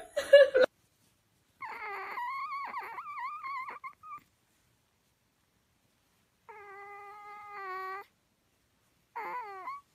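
Sleeping kitten mewing and whimpering in its sleep: a long wavering cry, then a steadier held one, then a short falling one near the end.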